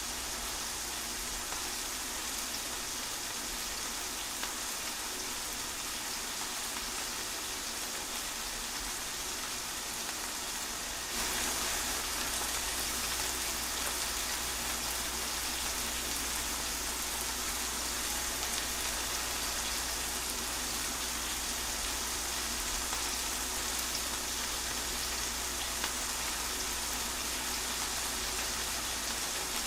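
Steady rain pattering down through trees, a dense even hiss that steps up a little in loudness about a third of the way in.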